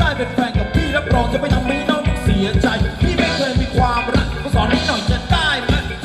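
A live band playing Thai ramwong dance music, a singer over a steady drum beat.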